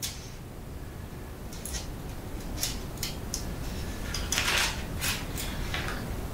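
Tinfoil lining a paint roller tray crinkling under a hand, with scattered light clicks from a small paint tin being handled as paint is poured; the crinkling is densest about four and a half seconds in.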